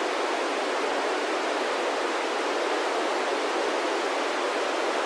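Steady FM static hiss from a handheld VHF radio tuned to the ISS downlink on 145.800 MHz, with no signal coming through between the astronaut's answers.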